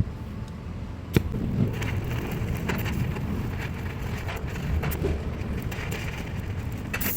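Gas welding torch flame burning with a steady low rumble, with irregular crackles and snaps from the weld, a sharp snap about a second in and a louder one near the end.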